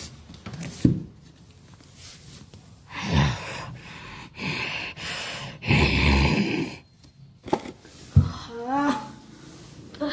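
A person breathing hard and gasping in several loud bursts, with a couple of sharp knocks of movement close to the microphone.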